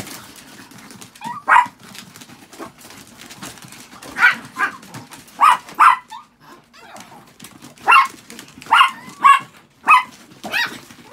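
Chihuahuas barking: about a dozen sharp, high-pitched yapping barks in irregular bursts.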